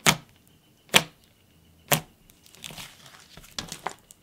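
Thick, fluffy clay-mixed butter slime being squeezed and folded by hand, giving three sharp pops about a second apart. After that come softer, irregular crackling squishes.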